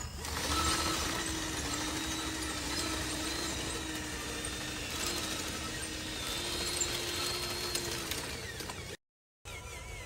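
Radio-controlled construction machine's electric drive motors and gearbox whining and grinding as it works, the pitch shifting a little as the load changes, with a brief dead gap near the end.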